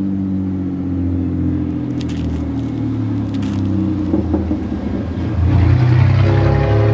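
Diesel locomotive engines of an approaching train running under load and growing louder. The locomotive's air horn starts to sound near the end.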